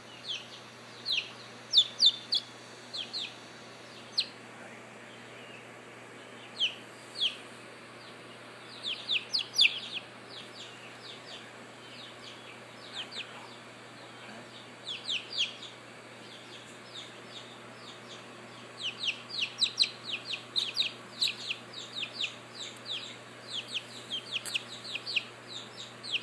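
Three-and-a-half-week-old chicks peeping: short, high, falling peeps, a few at a time, coming thicker and faster in the last third.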